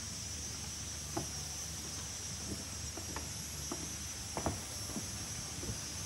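Steady high-pitched chorus of rainforest insects, with a low background rumble. About eight soft knocks fall irregularly through it, starting about a second in.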